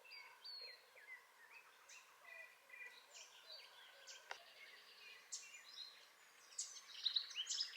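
Faint dawn chorus: several birds chirping with short whistled notes and quick trills, a little busier near the end.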